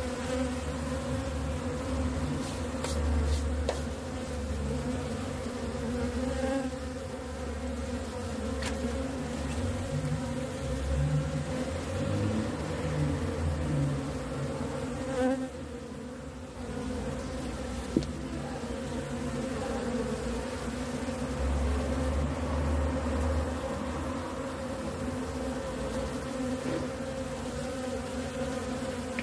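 Honeybees buzzing over an open hive, a steady hum that dips briefly about halfway through, with a single sharp click a little later.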